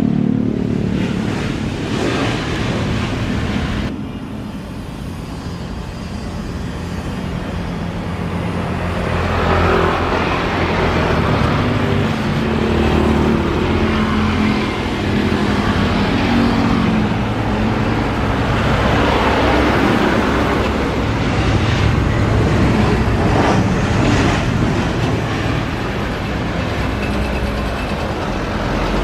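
Jet airliner engines running on and over a runway during landings. A Boeing 737-800 rolls out on the runway. After an abrupt cut about four seconds in, the sound drops, then the engine noise of an Airbus A320-family jet swells as it comes in, touches down and rolls out, rising and falling.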